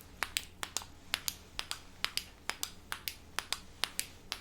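Small red light's switch being clicked on and off repeatedly: sharp plastic clicks, about four or five a second, often in quick pairs.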